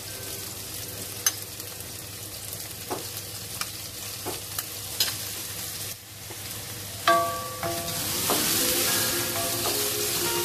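Sliced garlic, shallots and onion sizzling in oil in a stainless steel wok while a wooden spatula stirs them, with sharp taps and scrapes of the spatula against the metal, the loudest about seven seconds in. The sizzle grows louder over the last couple of seconds.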